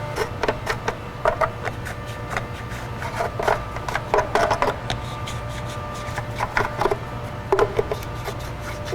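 Plastic wheel cover being fitted back onto a pickup's wheel: irregular clicks, knocks and scraping rubs, over a steady low hum.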